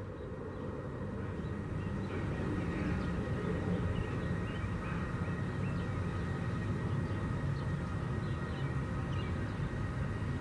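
Steady low outdoor rumble, like street traffic, with faint short high chirps scattered through it.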